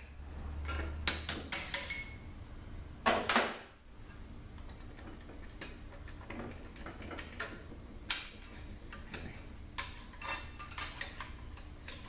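Metal clicks and clinks as the E-clutch feed pipe is worked out of a ZF5HP24 automatic transmission case, with a louder clatter about three seconds in, then lighter ticks and taps.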